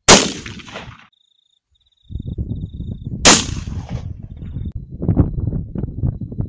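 .308 Winchester rifle shots, fired twice: a sharp crack at the very start and another about three seconds in, each followed by a short echoing tail. Between the shots the sound drops out for about a second, then a low rumbling background noise runs on.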